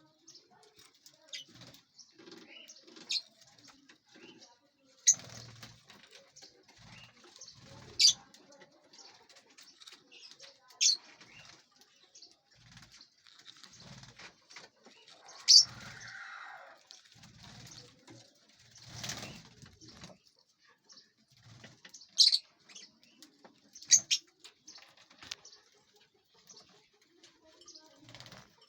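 Lovebirds giving short, sharp chirps every few seconds, with soft wing flutters between the calls.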